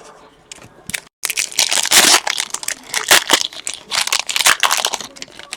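A trading-card pack wrapper being torn open and crinkled by hand. Light handling comes first; then, from a little over a second in, there is a few seconds of loud, continuous crackling.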